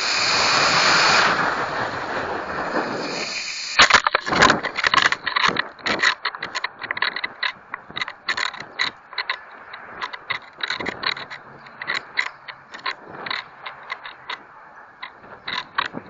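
Model rocket motor burning, heard from a camera riding on the rocket: a loud steady rushing hiss that starts suddenly at liftoff and stops about four seconds in. After burnout comes a long run of rapid, irregular clicking and rattling as the rocket coasts.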